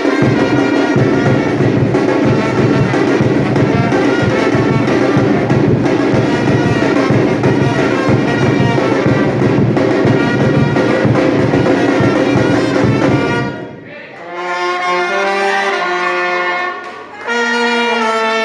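Batucada band playing loudly, drums and brass together, until the drums cut off about thirteen seconds in; horns then carry on alone with held melody notes.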